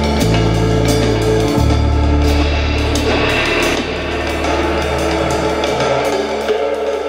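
Background music with a drum kit and cymbals beating steadily over held bass notes; the bass thins out about halfway through.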